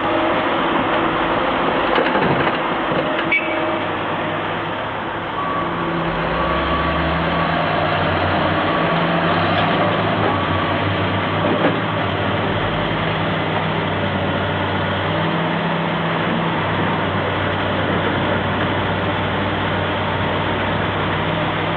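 Diesel engines of a backhoe and dump trucks running steadily under load, with a single sharp knock about three seconds in.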